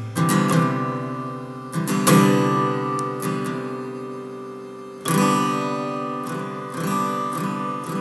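Acoustic guitar music: chords strummed several times, each left to ring out and fade before the next.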